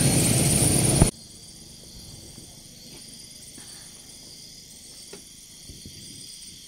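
Night insects chirring steadily in several high-pitched bands, with a few faint clicks. For the first second a loud vehicle engine runs over it, then cuts off suddenly.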